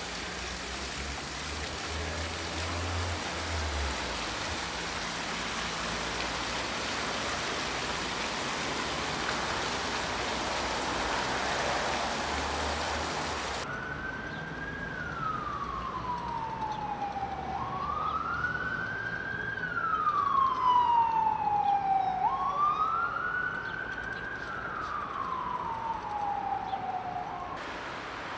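Steady rushing street noise for about the first half. Then an emergency vehicle's siren wails: it rises quickly and falls slowly, three times, and cuts off shortly before the end.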